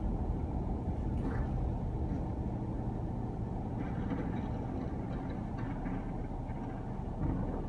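Garbage truck's diesel engine running with a steady low drone, with a few faint clatters around the middle.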